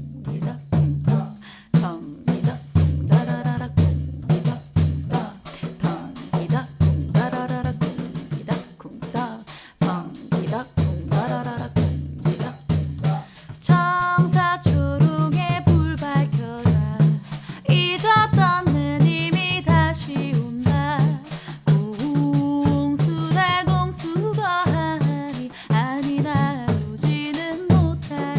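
Pandeiro played in a steady rhythm, its low thumps under a continuous jingle shimmer, accompanying voices singing a traditional Korean song. From about halfway a clearer, higher sung line with vibrato comes in over the drum.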